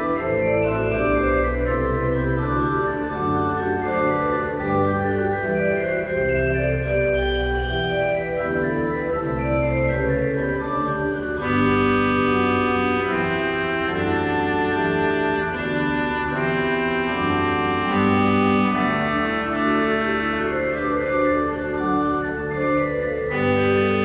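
Organ music: slow, sustained chords over a moving bass line, growing fuller in the upper notes about halfway through.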